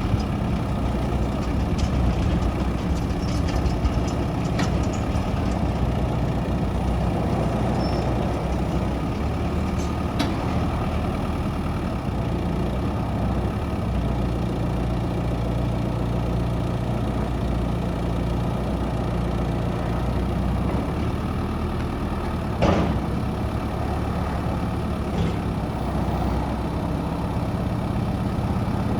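Volvo BL70B backhoe loader's diesel engine idling steadily, with a few light clicks and one sharp knock about 23 seconds in.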